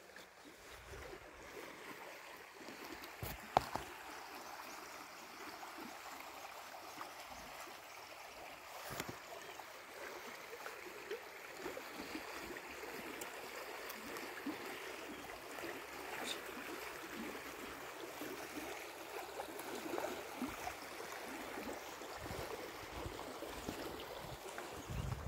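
Creek water flowing and babbling steadily, with a few light clicks, the sharpest about three and a half seconds in.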